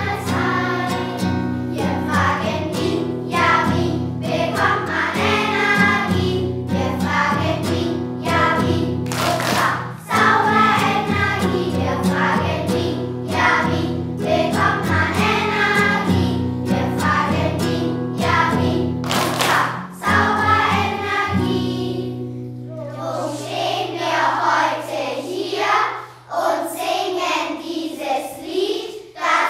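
A children's choir singing together over instrumental backing. About two-thirds of the way in, the backing drops away to a single held low note that fades, and the children's voices carry on almost alone.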